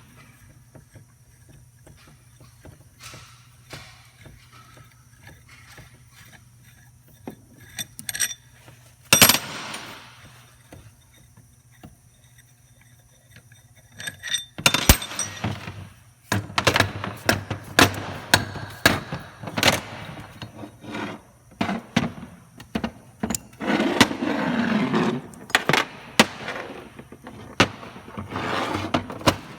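Metal parts of a hydraulic gear pump being knocked, pried and scraped apart: irregular sharp clanks and clinks, with two loud strikes, one about nine seconds in and one about fifteen seconds in, and a long stretch of scraping and rattling after that.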